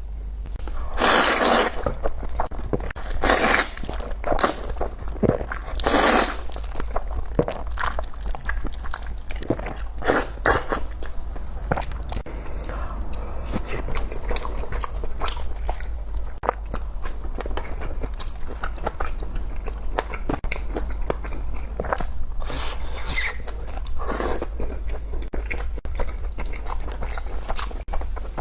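Close-miked eating of fried skewers and spicy fire chicken (Buldak) noodles: several loud crunching bites, with chewing and small clicks in between.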